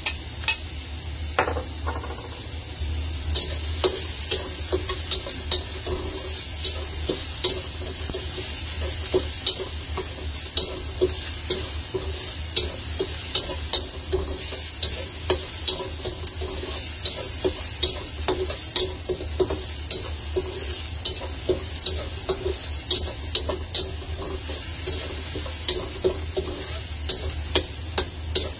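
Diced sausage sizzling in oil in a stainless-steel wok while a metal spatula stirs it, knocking and scraping against the pan in frequent sharp clinks over a steady sizzle.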